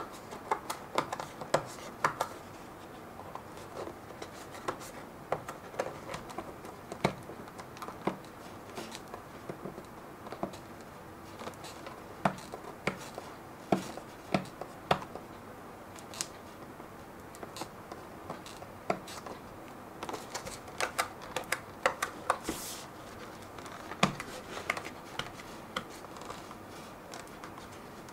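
Fingers picking and prying at a thin cardboard retail box to open its flap: irregular small clicks, taps and scratches of paperboard, with one short sliding scuff about two-thirds of the way through.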